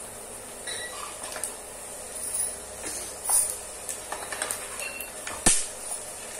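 Peanuts frying in hot oil in a wire strainer in an iron kadhai: a steady sizzle with scattered crackles and pops, and one sharp click about five and a half seconds in. The crackling is the sign that the peanuts are roasting well.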